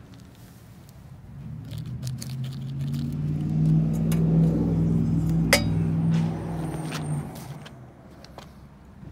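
A motor vehicle passing by: its engine sound swells over a couple of seconds, holds, then fades away. A sharp clink comes about halfway through.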